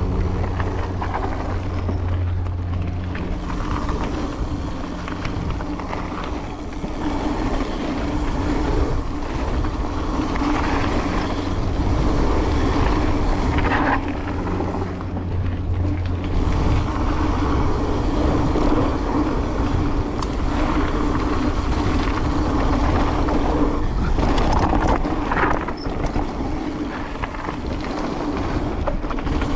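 A vehicle on the move: a steady running drone with an uneven, rough noise over it that goes on without a break.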